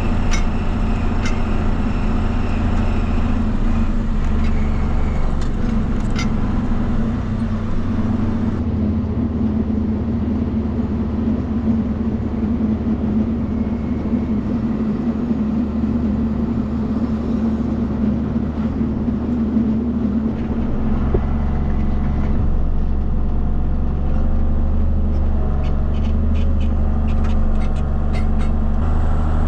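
Tractor diesel engine running steadily under load, with a deep, even drone. The tone shifts slightly twice.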